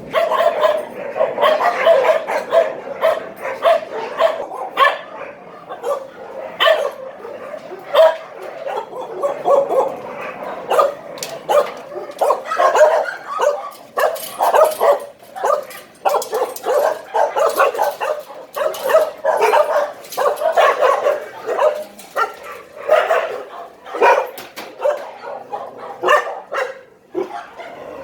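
Shelter dogs barking and yipping continuously, many barks overlapping with no pause.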